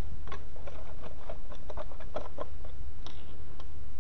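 Hands handling small parts and tools: a scatter of light clicks and knocks, over a steady low hum.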